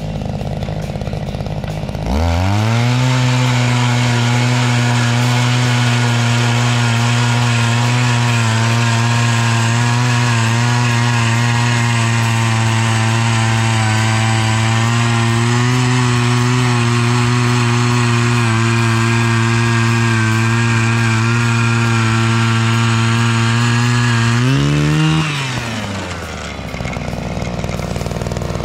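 Gas-powered ice auger engine drilling through lake ice. It is quieter for the first two seconds, then revs up and runs at a steady high speed under load. About three seconds before the end the revs flare briefly and drop back to idle as the auger is lifted out of the hole, then rise again at the very end.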